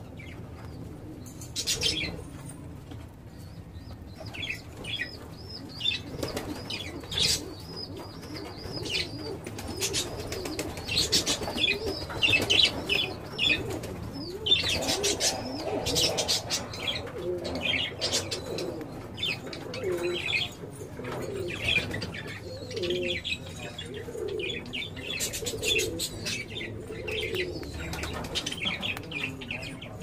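A group of lovebirds chirping with many short, high squeaks throughout, with bursts of wing fluttering now and then and lower warbling calls through the middle and latter part.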